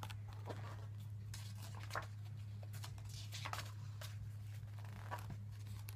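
Pages of a paper book being turned and handled: several short papery rustles and flicks, over a steady low hum.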